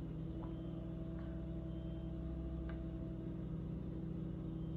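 Steady low electrical hum of room tone, with a few faint ticks.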